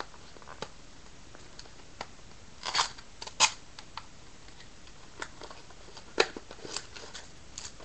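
Sealed trading-card packs handled between the hands: scattered light clicks and a brief crinkle of wrapper, with the sharpest clicks about three and a half and six seconds in.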